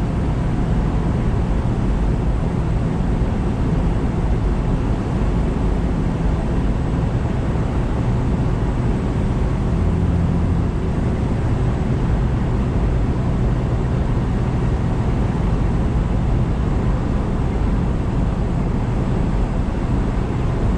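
Semi-truck's diesel engine running steadily at cruising speed with tyre and road noise, heard from inside the cab.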